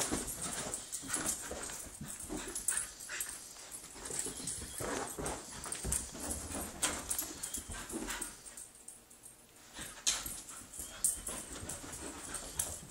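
Husky puppy whining and making short vocal noises as it runs about, with scuffling paws and scattered thumps and knocks throughout.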